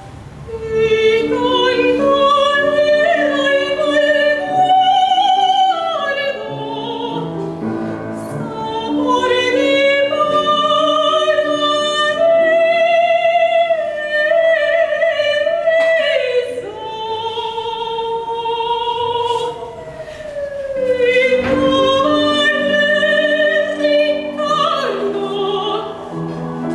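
Operatic soprano singing long phrases with a wide vibrato, accompanied by piano.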